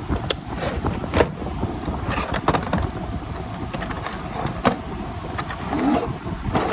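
Hand tools and tool cases clicking and clacking as they are handled in a toolbox drawer, a dozen or so sharp knocks at uneven intervals, over a steady low background rumble.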